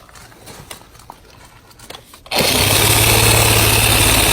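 Reciprocating saw (Sawzall) with a wood blade starting abruptly a bit over two seconds in and running steadily as it cuts into a palm tree trunk. It cuts through easily, "like butter". Before it starts there are only a few faint clicks.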